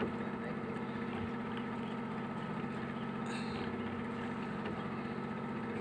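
A small engine running steadily, a constant low hum.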